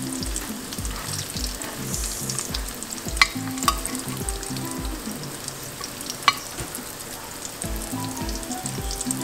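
Spring rolls deep-frying in hot oil in a pan, a steady sizzle with fine crackling, and three sharp clicks of metal tongs against the pan, two close together about three seconds in and one about six seconds in. Soft background music with a steady bass beat runs underneath.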